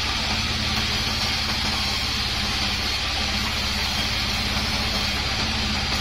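A large 36-inch bandsaw running steadily, its blade ripping a kapok (randu) wood offcut lengthwise: a constant low motor hum under an even hiss of the cut.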